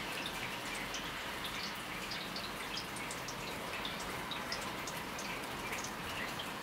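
Water dripping in many small, irregular drops over a steady hiss: wet snow thawing at just above freezing.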